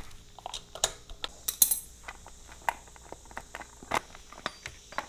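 Irregular metallic clicks and clinks of tools, bolts and the front sprocket cover being handled as the cover is unbolted and lifted off a Honda Grom.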